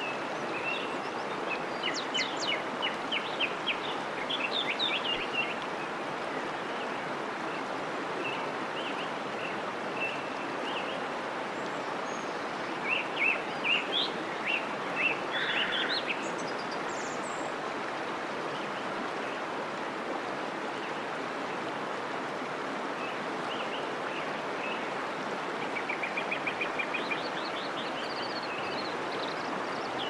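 Songbirds chirping and trilling in three short bursts over the steady rush of a running stream.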